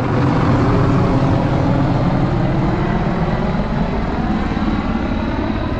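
Helicopter flying low overhead, a loud steady drone of rotor and engine that eases off slightly near the end.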